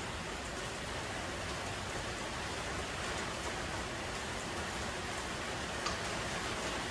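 Steady, even hiss throughout, with a single faint tap about six seconds in.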